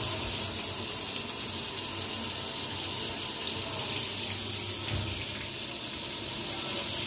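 Steady hiss of water running in household plumbing.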